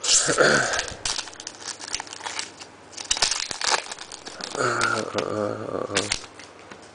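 Foil wrapper of an SP Authentic hockey card pack crinkling and tearing as it is ripped open by hand, followed by rustling as the cards are slid out.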